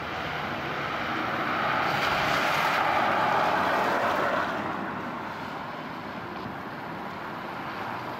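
Izukyu 2100 series "THE ROYAL EXPRESS" electric train running away at speed, a steady rushing rumble that swells about two seconds in and eases off after about four and a half seconds.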